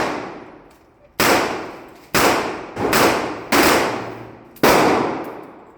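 Pistol shots fired in a string after a holster draw: five shots at uneven spacing, roughly a second apart, each followed by a long echoing decay.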